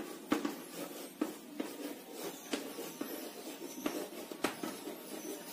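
Chalk writing on a blackboard: irregular sharp taps and short scratching strokes as the words are written.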